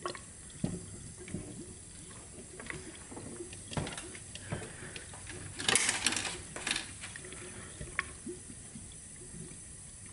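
Coolant gurgling and bubbling in the cooling system of a 2005 Subaru Outback's EZ30 flat-six as leak-down tester air is pushed into the cylinder, in irregular pops with a louder spell about six seconds in. The bubbles are air escaping past a blown head gasket into the coolant.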